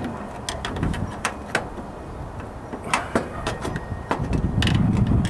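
Irregular light clicks and taps of hands and a screw against the plastic and metal of a front-load washer's inlet valve mounting, as the valve's screw is fitted and hand-tightened. A low rumble comes in about four seconds in.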